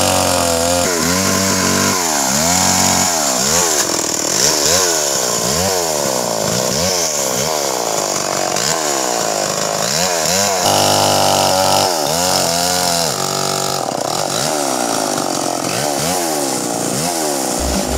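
Stihl MS 381 two-stroke chainsaw running and revving up and down over and over, about once a second, with short steady stretches at high revs near the start and about two-thirds of the way through.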